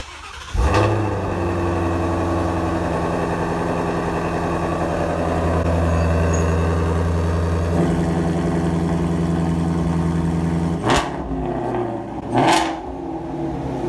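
Ford Mustang GT350's 5.2-litre flat-plane-crank V8, its exhaust resonators deleted, starting with a loud flare about half a second in and settling into a steady idle. It is revved briefly twice near the end.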